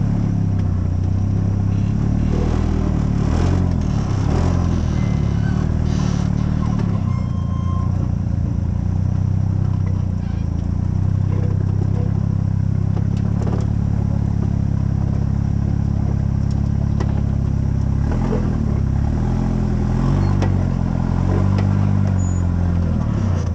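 Off-road rock buggy's engine running at low revs close by, a steady rumble whose pitch wavers up and down as the throttle is worked. Scattered light knocks and clatter sit over it.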